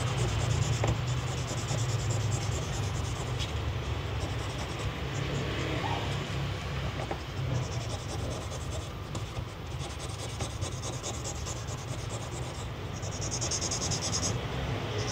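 Fine 600-grit sandpaper rubbed back and forth by hand on the edge of an acrylic amulet frame: a steady scratchy hiss in repeated strokes, over a low steady hum.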